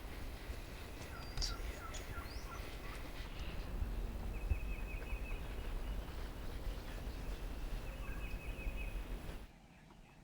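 Wild turkey gobbling twice, rapid rattling gobbles about four and seven seconds in, from a bird on its roost for the night. Other small birds chirp briefly near the start over a low wind rumble.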